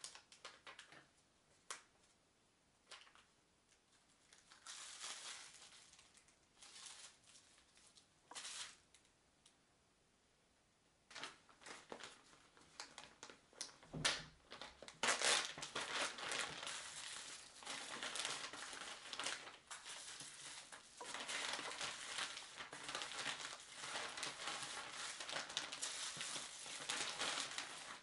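Plastic wrap and a zip-top freezer bag crinkling as wrapped packs of raw meat are handled and slipped into the bag. Scattered light taps and brief rustles come first, then dense, continuous crinkling from about halfway on.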